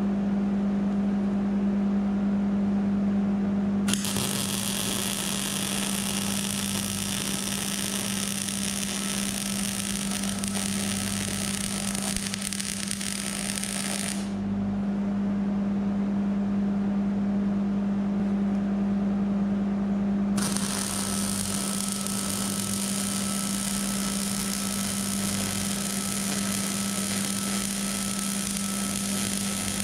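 Hobart 210 MVP MIG welder running solid wire on a steel frame: the arc crackles steadily, like frying bacon, for about ten seconds, stops, then crackles again for about nine seconds near the end, over a steady low hum. The even crackle is the sign of a welder set up right, with the polarity switched to electrode-positive for solid wire.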